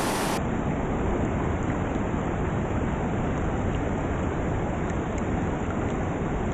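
Small mountain stream running steadily, an even rush of water.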